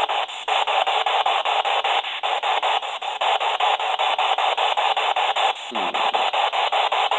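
PSB-7 spirit box radio sweeping down the AM band, a continuous choppy stream of static and clipped radio fragments that cuts to a new frequency several times a second. About six seconds in, a short falling tone slides through the noise.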